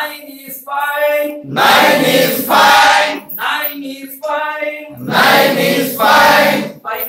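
A call-and-response chant sung twice: one voice sings a short line, then a group of adults answers it loudly in unison.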